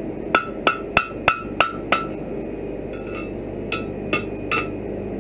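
Blacksmith's hammer striking iron on a steel anvil, forging a bar into a fire poker. A quick run of six blows at about three a second, each leaving a short metallic ring, then a pause and four lighter, more spaced blows.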